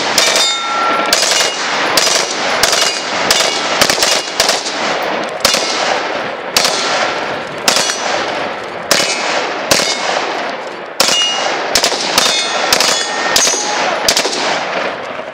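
Sustained rifle fire from M4 carbines fitted with FERFRANS uppers: sharp shots about two to three a second, each echoing off the surrounding hills, with brief ringing pings among them. The firing stops near the end.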